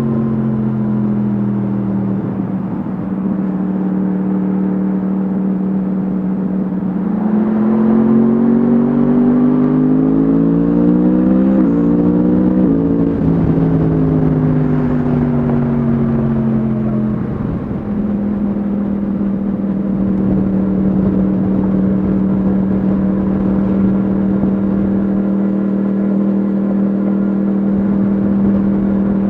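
Yamaha MT-10 SP's crossplane inline-four through an Akrapovic exhaust, heard from the rider's seat. The engine holds a steady note, then rises in pitch under acceleration with a gear change about twelve seconds in. It falls back as the bike slows and settles into a steady low note again.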